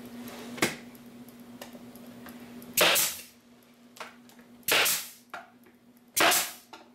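Pneumatic narrow-crown stapler firing three times, about one and a half to two seconds apart, driving 1-inch staples through wooden shims into a hive cover frame. Each shot is a sharp crack that dies away quickly.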